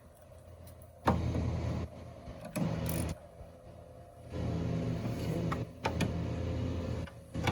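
Small electric driver run in three short bursts, the last about three seconds long, each starting and stopping abruptly, as it drives the headlight mounting bolts home.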